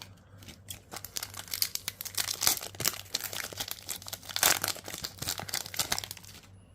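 Foil wrapper of a trading-card booster pack being torn open and crinkled in the hands: a dense run of crackling that stops about six seconds in.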